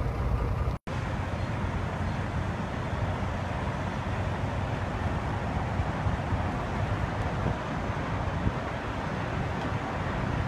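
Steady low rumble of diesel semi trucks and traffic moving through a truck stop lot. The sound cuts out to silence for an instant just under a second in.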